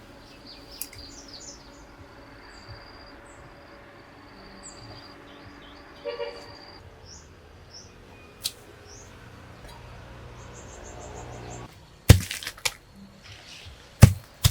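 Rural ambience: birds chirping over a steady high insect drone, with a brief call midway. Near the end come two loud, sharp knocks.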